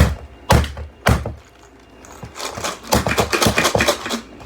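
Three heavy thunks about half a second apart, then about two seconds of fast clattering and rattling of small hard objects.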